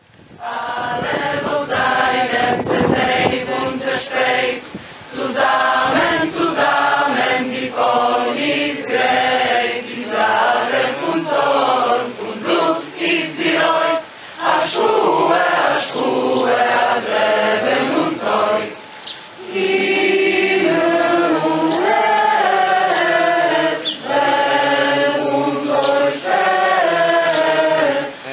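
A choir singing a Yiddish song in several voices, phrase by phrase, with short breaks between the phrases.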